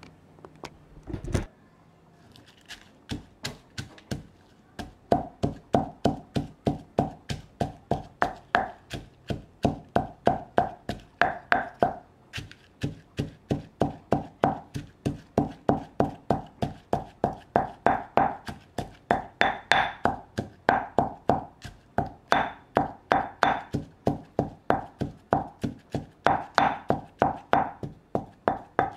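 Pestle pounding ingredients in a mortar: a steady run of about three blows a second, each knock ringing briefly. There are a few separate blows and a heavier low thump in the first seconds.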